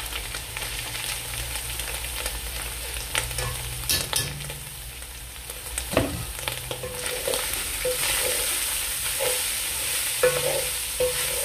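Boiled mutton mince going into hot oil and browned onions in an aluminium pot, sizzling as it is stirred, with a few sharp knocks against the pot. The frying hiss gets louder in the second half.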